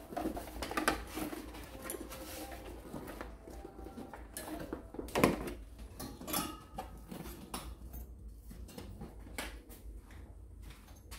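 Soft motorcycle luggage being handled and fitted to the seat: fabric rustling with scattered clicks and knocks of straps and buckles, the sharpest knock about five seconds in.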